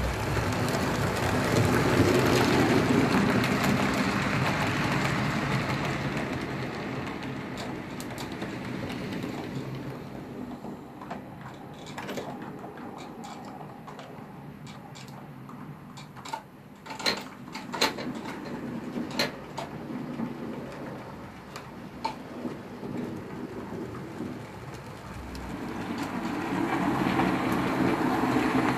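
HO-scale model trains rolling along PIKO track, a steady rumble. It swells over the first few seconds and again near the end as trains pass close, and is quieter in between. A string of sharp clicks sounds in the middle.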